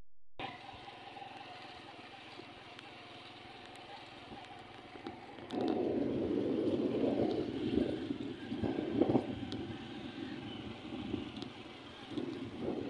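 Motorcycle running along a dirt road, a steady quiet hum that grows louder and more uneven from about five and a half seconds in.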